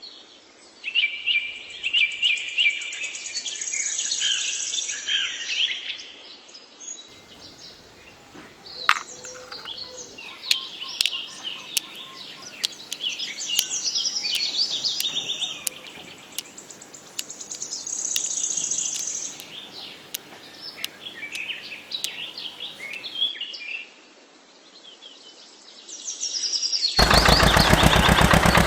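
Songbirds chirping and trilling, many short high calls overlapping. Near the end a loud, fast mechanical rattle cuts in abruptly.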